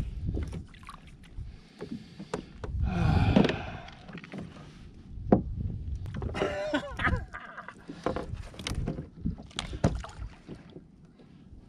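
Irregular knocks, clicks and rattles of fishing gear and a lip gripper being handled against a plastic fishing kayak as a lingcod is brought alongside and aboard. A louder burst of rushing noise comes about three seconds in.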